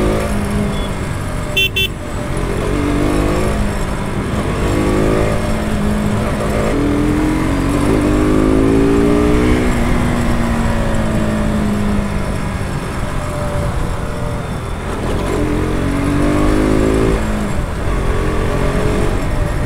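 KTM RC 200's single-cylinder engine accelerating through the gears, its pitch rising and then dropping at each shift, again and again, over road traffic.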